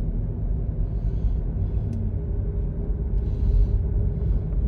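Steady low rumble of a car in motion, with a faint constant hum over it.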